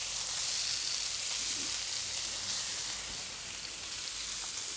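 Monkfish searing in smoking-hot oil in a pan, a steady sizzle.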